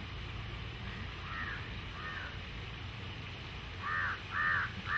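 Crow cawing: two faint caws, then three loud caws about half a second apart near the end, over a low steady rumble.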